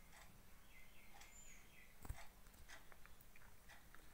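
Near silence: faint room tone with a few small scattered clicks and one soft thump about halfway through.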